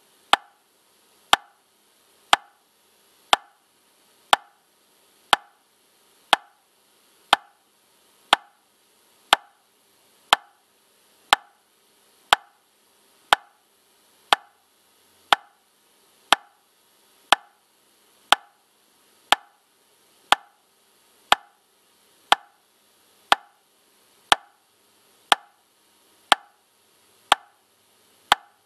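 Metronome clicking steadily at 60 beats per minute: one short, sharp click each second, every click the same, each with a brief ring.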